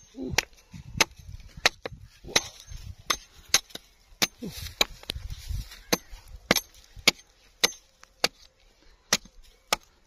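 Small axe chopping into a tree trunk, one sharp blow about every half second.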